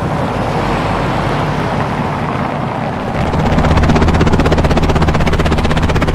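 Helicopter flying, a steady rushing noise that grows louder about three seconds in, where a fast, even rotor beat comes in.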